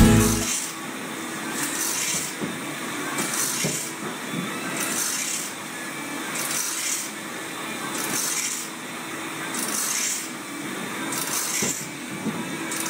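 Automatic band saw blade sharpening machine grinding one tooth after another. The grinding wheel gives a short rasping hiss about every second and a half, over a steady motor hum.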